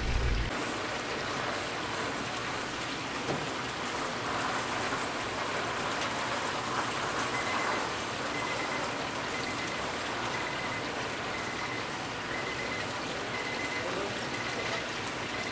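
Chicken deep-frying in hot oil: a steady crackling sizzle.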